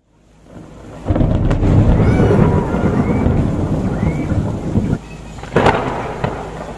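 Thunder with rain: a long deep rumble that builds about a second in, then a sharp crack a little past halfway that fades away.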